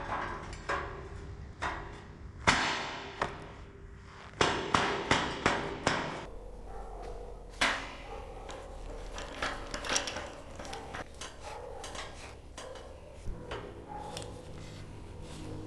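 Irregular metal knocks and clanks, like a hammer striking steel parts, with a cluster of louder strikes in the middle.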